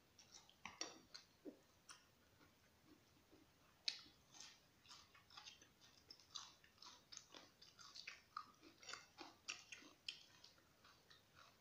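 Faint close-up chewing of a mouthful of noodles and vegetables: many quick, irregular wet mouth clicks and smacks.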